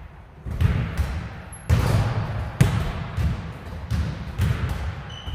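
Basketball bouncing on a hard court, a string of thuds at an uneven pace.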